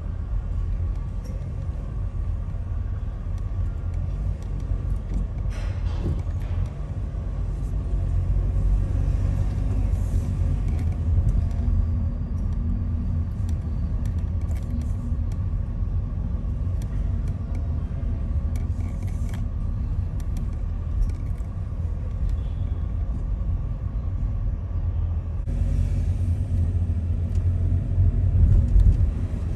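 City street traffic: a steady low rumble of passing cars.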